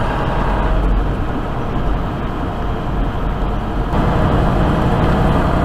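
Semi truck's diesel engine and tyre noise, heard from inside the cab while driving: a steady low drone. About four seconds in the engine note grows a little louder and fuller.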